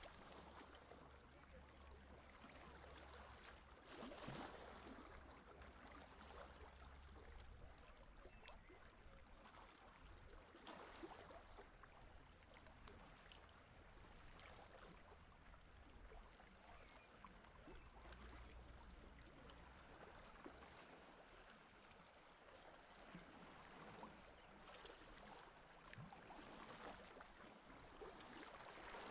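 Faint, calm sea water lapping and gurgling softly, with a few small surges now and then.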